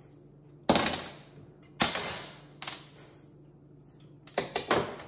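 Small metal parts of a disassembled model steam engine clattering down onto a metal workbench top: three sharp clacks with a brief rattle in the first three seconds, then a quick cluster of them near the end.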